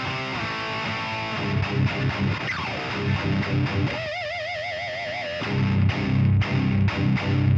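Electric guitar fitted with a prototype 22k high-output pickup playing a distorted metal riff: short low chugging notes, then a single held note with wide vibrato about four seconds in, then back to low riffing with sharp stops.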